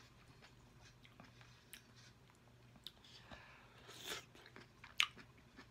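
Close-up eating sounds: a piece of sauce-coated bell pepper being bitten and chewed, faint and wet, with one sharp click about five seconds in.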